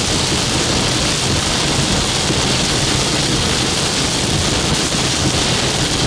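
Steady noise of a moving car: engine and tyre rumble under a loud, even hiss.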